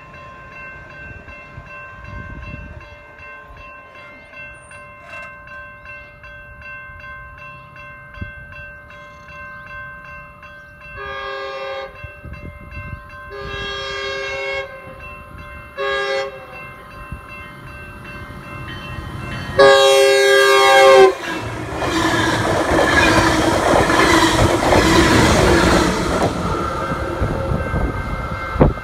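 Grade-crossing bell ringing steadily while a Metrolink commuter train's horn sounds the crossing signal: two long blasts, a short one, then a final, louder long blast. The train then passes close by with a loud rumble of wheels on rail.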